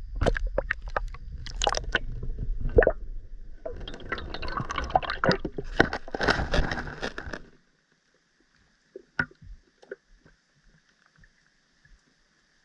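Water sloshing and splashing at the pond surface, with low rumble and sharp knocks, then cutting off suddenly about seven and a half seconds in to a faint underwater hush with a few light clicks.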